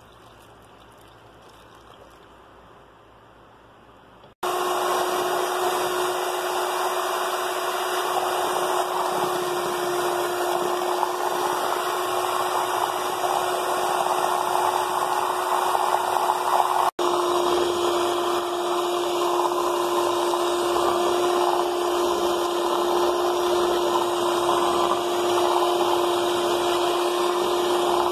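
Electric hand mixer switching on about four seconds in and running steadily at one constant whine, its beaters whisking flour and milk into cake batter. The sound drops out for an instant about two-thirds of the way through.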